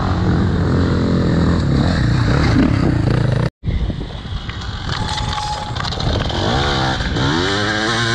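Enduro motorcycle engine running, heard onboard with wind on the microphone. About three and a half seconds in it cuts off abruptly, and a second enduro bike is heard riding by, its engine pitch dropping and then rising as it accelerates.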